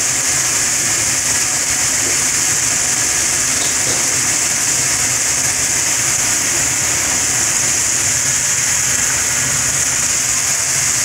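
Batter-coated stuffed squid deep-frying in a basket in hot oil, the oil sizzling and bubbling steadily. A steady low hum runs underneath.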